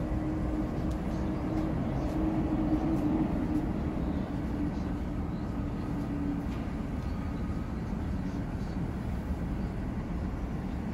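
Steady hum of an idling vehicle engine over street traffic noise; its strongest droning tone fades out about six seconds in.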